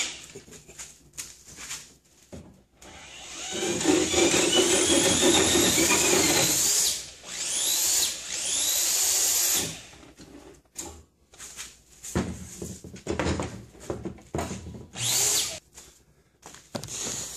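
Cordless drill driving a homemade drill-powered hand saw through a right-angle gearbox, spinning up with a whine that rises in pitch, for about six seconds from a few seconds in. A second short spin-up comes near the end, with clicks and knocks in between, and straight afterwards the gearbox is broken.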